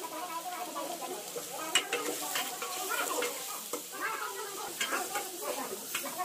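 A long metal ladle scraping and stirring food that sizzles as it fries in a large aluminium pot over a wood fire. Sharp knocks of metal on metal come now and then, the loudest a little under two seconds in.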